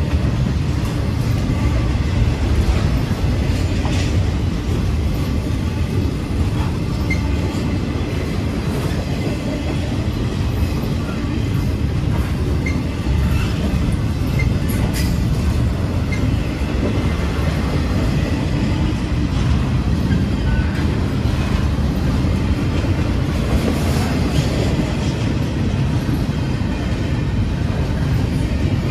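Intermodal freight train's double-stack container cars rolling past close by: a steady, loud rumble of steel wheels on the rails, with scattered clicks over rail joints and a few brief, faint wheel squeals.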